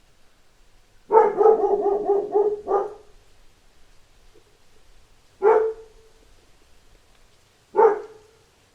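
A dog barking: a fast run of about seven barks in under two seconds, then two single barks a couple of seconds apart.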